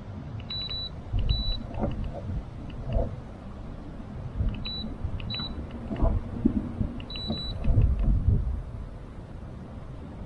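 Short, high electronic beeps in pairs, three times, from the boat's electronics. Under them, wind buffets the microphone with a low rumble, and there are several dull knocks on the small boat.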